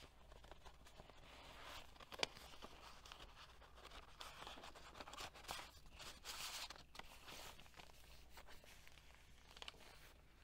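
Faint rustling of heavy paper pages in a handmade journal being turned and handled, with a few soft clicks and taps.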